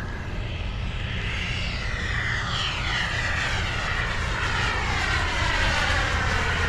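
Radio-controlled model jet flying low past, its high whine gliding steadily down in pitch as it passes while growing louder.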